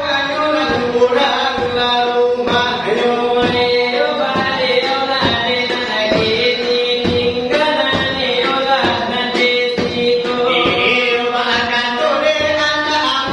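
Minangkabau salawat dulang singing: a voice carrying a long, ornamented melody over a steady pattern of quick percussive taps, in the way the brass tray (dulang) is struck in this style.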